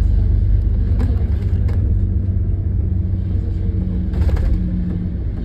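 Inside an Alexander Dennis Enviro400MMC double-decker bus under way: a steady low rumble of engine and road noise. A few short knocks or rattles come about a second in, just under two seconds in, and a little over four seconds in.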